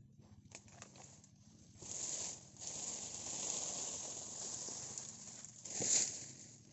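Rustling swish of a cut oil-palm frond being pulled through the dry undergrowth, starting about two seconds in, with a louder rustling crash about six seconds in.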